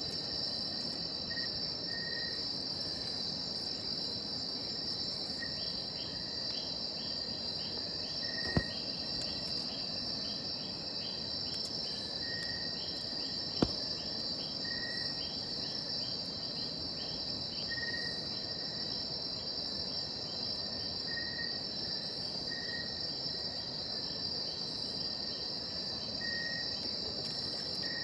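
Steady high-pitched insect chorus of rainforest insects, with short chirps repeating every few seconds and a spell of rapid ticking in the first half. Two sharp clicks stand out, about a third and halfway through.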